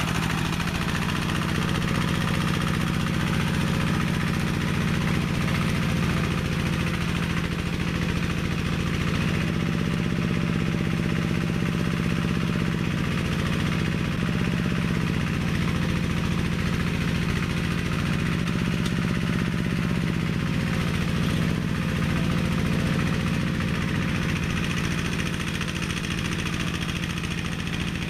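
Engine of a homemade minitractor, built from a walk-behind tractor, running steadily under load as it pulls three cultivator tines through the soil. Its pitch wavers only slightly.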